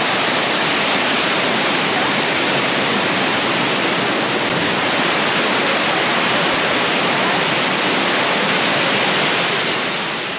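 Waterfall: a steady, even rush of falling water, easing slightly near the end.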